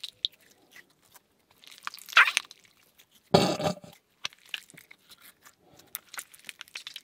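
Sticky clicks and squishy crackles of a gel cleaning slime being stretched and squeezed in the hands, with two louder short noisy bursts about two and three and a half seconds in.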